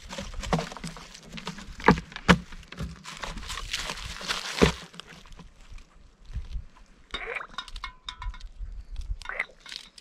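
Gear being handled while water is scooped and filtered: rustling with three sharp knocks in the first five seconds, then quieter scattered scrapes and squeaks.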